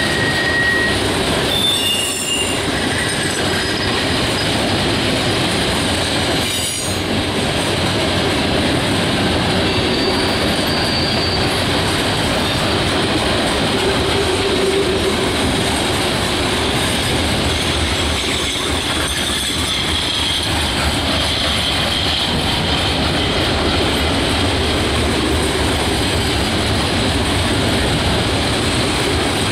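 Freight train of loaded coke hopper cars rolling past close by: a loud, steady rumble and rattle of wheels on rail. Brief high-pitched wheel squeals come and go, near the start, around ten seconds in and again around twenty seconds in.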